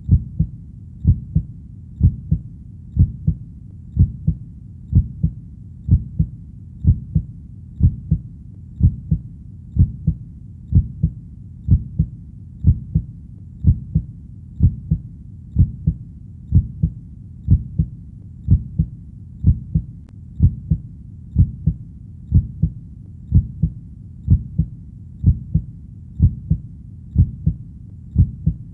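Human heartbeat, a steady low-pitched lub-dub double beat repeating about once a second.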